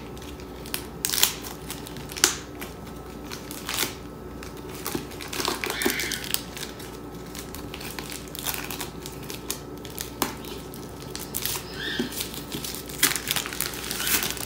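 Clear plastic shrink-wrap being pulled and peeled off a hardcover book by hand, crinkling and crackling irregularly.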